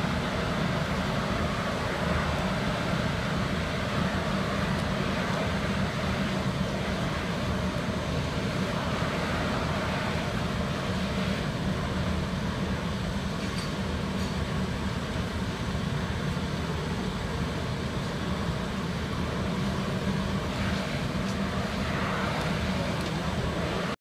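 Rice husk powder biomass burner firing: its blower and flame make a steady rushing noise over a low hum.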